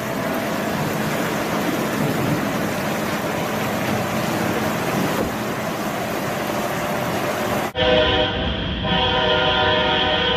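Steady rushing noise, then, after an abrupt cut about three-quarters of the way through, a loud, sustained horn sounding a rich chord of steady tones.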